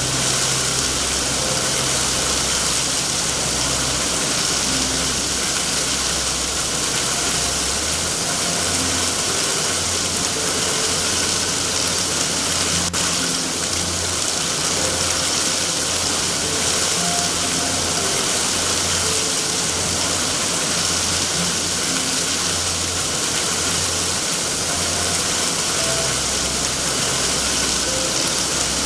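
Steady heavy rain hiss with a low rumble underneath.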